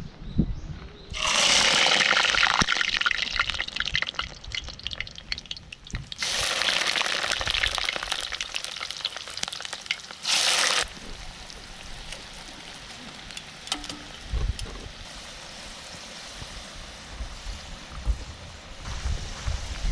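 Water running or pouring in two spells, about a second in and again from about six to eleven seconds, each starting and stopping abruptly, with a quieter steady hiss between and after.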